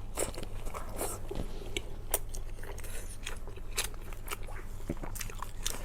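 Close-miked eating sounds: a person chewing and biting food, with many small irregular mouth clicks and crunches.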